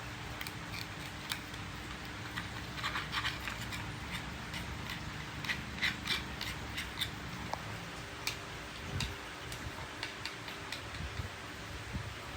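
Light, irregular clicks and scrapes of small metal parts and hand tools being handled during repair work, thickest in the middle. A faint steady hum stops a little past halfway.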